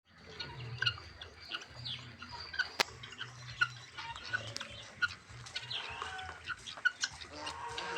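Domestic chickens clucking and calling in many short, repeated notes, with one sharp click about three seconds in.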